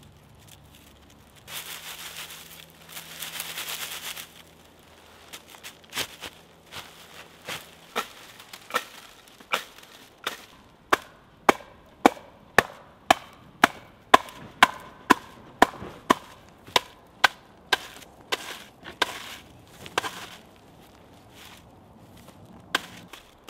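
A flat wooden board beating the ends of a water reed thatch to dress and blend the reed: a run of sharp knocks at about two a second, loudest in the middle and thinning out near the end.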